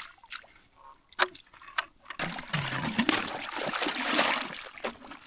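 A bucket is dipped into a hole in creek ice and filled: a few sharp knocks, then a couple of seconds of water splashing and sloshing.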